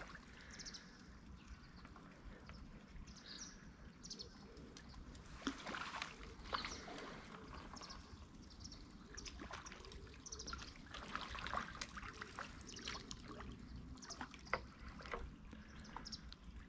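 Faint trickling and small splashes of water, many short irregular drips and ticks over a low steady hiss.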